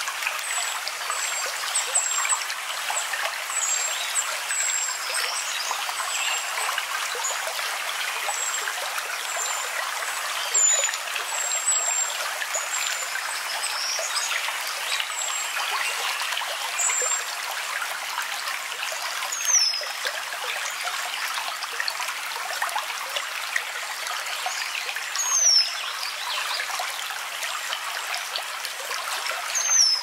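A stream trickling steadily, with small birds chirping over it: many short high chirps in the first half, and three times a high whistle falling in pitch in the second half.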